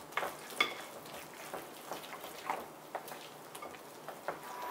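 A spoon stirring thick, wet batter of grated zucchini in a bowl, with irregular soft clicks and scrapes of the spoon against the bowl.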